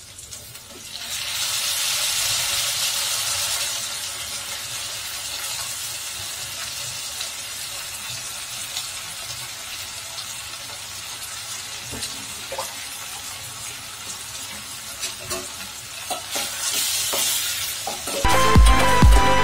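Wet eggplant (brinjal) pieces tipped into hot oil in a steel pot, with a loud sizzle that surges about a second in and then settles into steady frying, with a few stirring clicks later on. Music with a beat comes in near the end.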